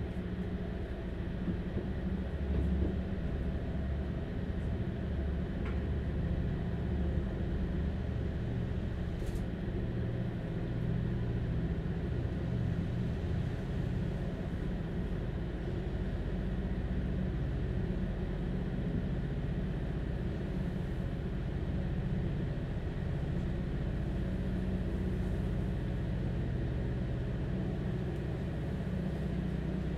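Inside a Stadler Class 755 FLIRT bi-mode train on the move: a steady low drone from its diesel power pack engine over the running rumble of the train, picked up close by a contact microphone.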